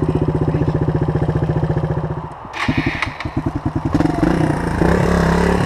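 Suzuki DR dual-sport motorcycle's single-cylinder engine running at a steady idle, then dipping and stumbling with a short clatter a bit over two seconds in, before picking up and revving higher from about four seconds on.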